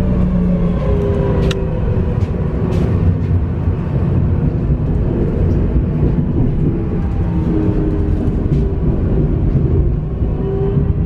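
Tram running on its rails with a steady low rumble, overlaid by the electric drive's tones sliding in pitch, falling in the first half and rising again near the end. A couple of sharp clicks come about a second and a half and three seconds in.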